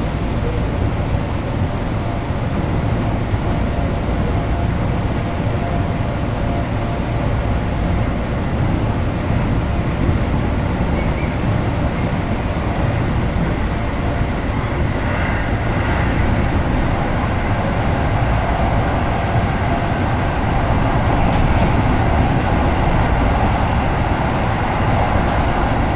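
Keio Line electric commuter train running between stations, heard from inside the passenger car: a steady rumble of wheels on rails and running noise, a little louder near the end.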